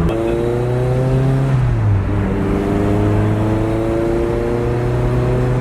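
Turbocharged 2001 Toyota MR2 Spider's four-cylinder engine, breathing through a home-welded exhaust manifold and a Jaguar exhaust, accelerating under load. The pitch climbs for about a second and a half, drops at a gear change about two seconds in, then climbs steadily again through the next gear.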